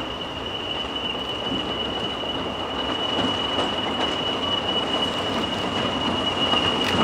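English Electric Class 40 diesel locomotive 40106 running slowly with its train, a steady high whistle from its turbocharger held over the engine and wheel rumble. The sound grows slowly louder as the locomotive comes closer.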